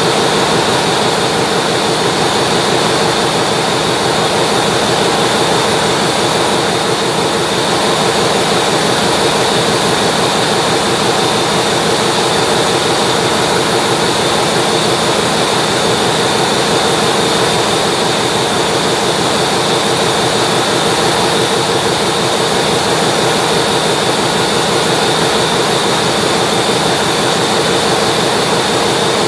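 Ship's engine-room machinery running: a loud, steady roar with a constant hum and a high whine. With the main engine opened up for exhaust-valve work, this is background machinery such as generators and ventilation, not the main engine itself.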